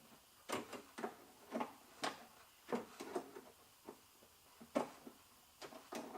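Short metallic clicks and scrapes, irregular, about one or two a second, from a 10 mm angled wrench being worked a tiny bit at a time on a door-handle mounting nut inside a car door.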